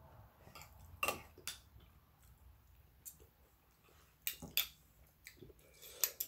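Faint clinks of cutlery against a dish during a meal: about half a dozen separate light taps, scattered and irregular.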